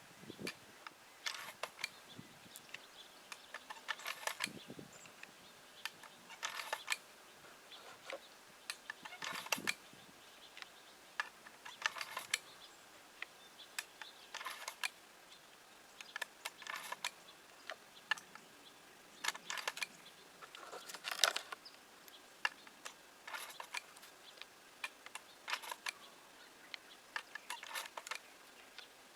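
Short sharp clicks and light rattles in small clusters, roughly every two to three seconds, with no shots.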